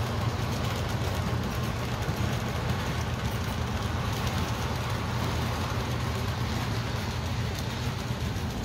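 O gauge model freight train rolling past: a steady rumble and hum of metal wheels running on the rails, with no let-up as the cars go by.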